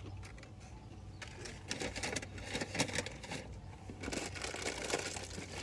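Close-up chewing of crispy fast-food fries, a quick run of crisp crunching clicks that comes and goes in two busy stretches.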